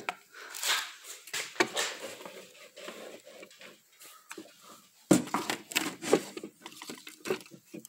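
Rummaging noises as household objects and a stuffed toy are handled and shifted about: irregular rustling and light knocks, with a sharper knock about five seconds in.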